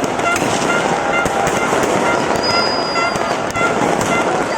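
Fireworks display going off: a dense, continuous run of bangs and crackles, with one short high whistle about halfway through.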